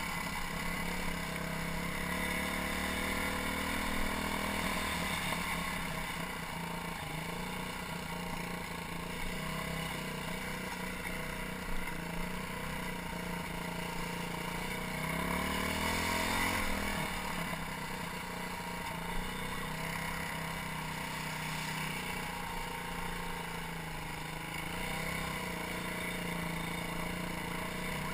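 BM Motard 200 supermoto's small single-cylinder engine running while riding, its pitch rising and then falling back around the middle as the bike speeds up and slows. Two short sharp clicks stand out, once a little before halfway and once about two-thirds in. The owner says this engine ticks intermittently and surges and hesitates since a tank of bad fuel.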